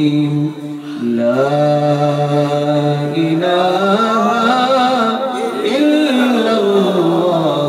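A man singing an Islamic devotional song in long, drawn-out notes that wind slowly up and down in pitch, with a short break about a second in.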